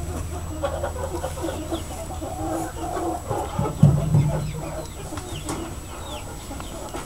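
Farmyard fowl clucking and chirping in short, scattered calls, with one louder, lower call about four seconds in.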